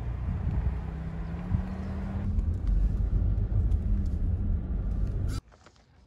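Car running, heard from inside the cabin: a low rumble with a steady engine hum and road noise, cutting off abruptly about five seconds in.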